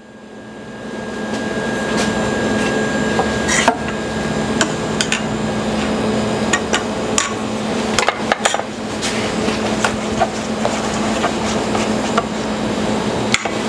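A metal utensil knocking and scraping in stainless steel kitchen bowls and a pot, in scattered irregular clinks over a steady background hiss and hum that builds up in the first two seconds.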